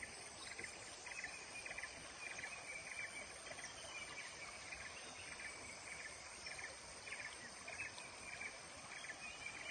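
Insects chirping in short buzzing pulses, about two a second, over a steady background hiss, with a few brief bird chirps.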